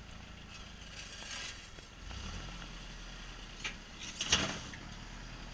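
Lifted Toyota pickup rock crawler climbing a rock ledge, its engine running low and steady at crawling speed. A few short knocks and scrapes come from the truck on the rock, the loudest a sharp clunk a little over four seconds in.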